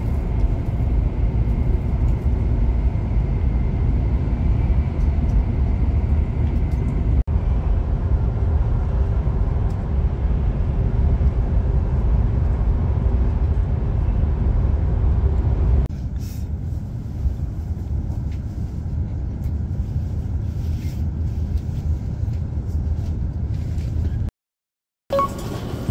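A moving vehicle's steady low rumble. It changes character and grows quieter about two thirds of the way through, and cuts out for a moment near the end.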